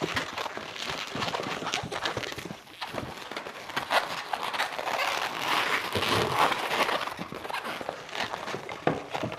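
An inflated latex twisting balloon squeaking and creaking in the hands as it is twisted and squeezed into shape, with many irregular squeaks and rubbing sounds.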